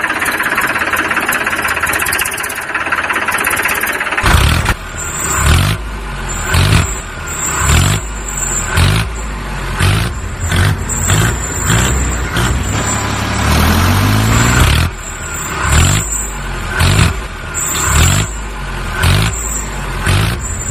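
A motor vehicle engine runs steadily for about four seconds, then revs hard in repeated surges, roughly one a second, with a gliding rise and fall in pitch partway through, as if straining under load.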